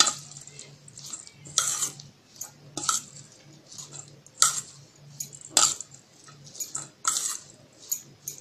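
Metal spoon scraping and clinking against a stainless steel bowl as sliced onions and spices are stirred, a short stroke roughly every second and a half.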